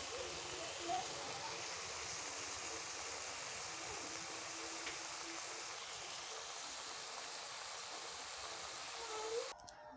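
Steady sizzling hiss of red amaranth greens cooking in a kadai on the stove, cutting off abruptly near the end.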